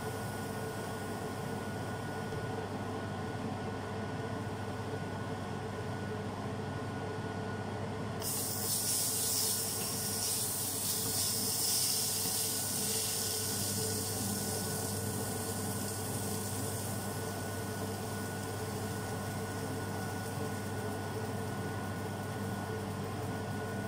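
Banana pancake batter sizzling in a hot frying pan: about eight seconds in, a hissing sizzle starts suddenly, is loudest for several seconds, then settles to a fainter sizzle. A steady hum runs underneath.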